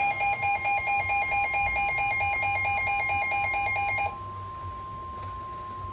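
Midland WR-120 weather radio's alert alarm beeping rapidly, about six beeps a second, over the steady 1050 Hz NOAA Weather Radio warning alarm tone. The beeping stops about four seconds in, and the tone carries on alone until near the end. The tone marks an incoming warning broadcast, here a severe thunderstorm warning.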